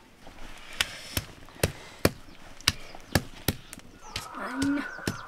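A series of sharp knocks at an uneven pace, about eight in all, with a short low call about four and a half seconds in.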